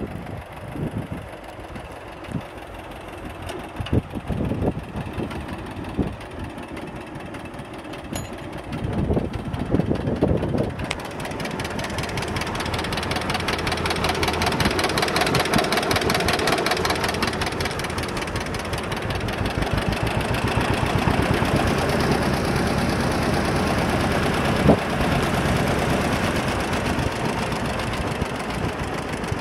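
John Deere 60's two-cylinder engine running with a pulsing beat. It grows louder and denser from about eleven seconds in, heard close to the engine block.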